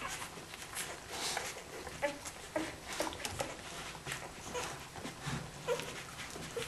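Week-old Australian Kelpie puppies nursing: brief, scattered high little squeaks and whimpers among small clicks and rustling.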